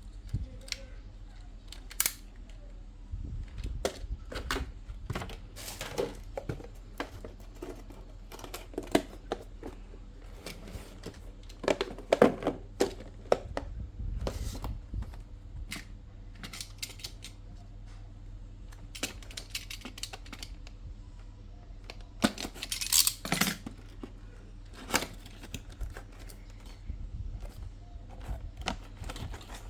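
Toy packaging being unpacked by hand: scattered clicks, taps and short rustles of plastic and cardboard, loudest about twelve seconds in and again about twenty-three seconds in, over a steady low hum.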